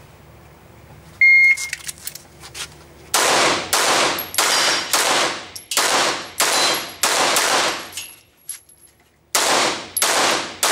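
An electronic shot-timer beeps once as the start signal. A couple of seconds later a semi-automatic pistol fires a fast string of about nine shots, about two a second, each shot echoing off the indoor range. After a short pause, two more shots come near the end.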